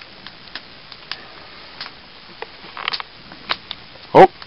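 Open fire crackling with sharp, irregular pops and snaps, then a man's short, loud "Oh!" near the end.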